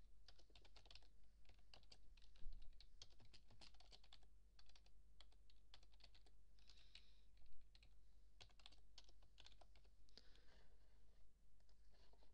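Computer keyboard being typed on: quick runs of quiet keystrokes with short pauses between them, and two sharper, louder key clicks about two and a half and seven and a half seconds in.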